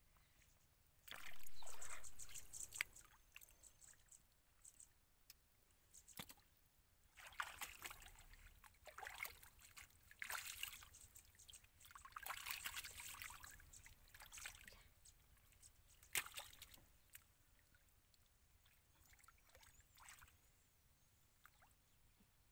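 Shallow muddy water sloshing and splashing in irregular bursts as hands work through it, the loudest burst about a second in, with a few sharp clicks between.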